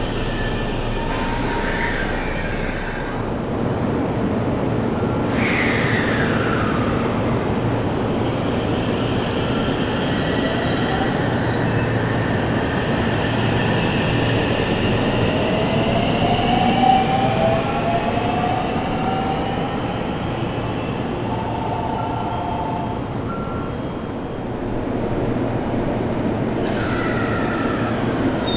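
JR Central 313 series electric train running, its Toshiba VVVF inverter and traction motors whining over a steady hum and wheel-on-rail noise. Several whining tones climb slowly in pitch through the middle, and one drops sharply early on.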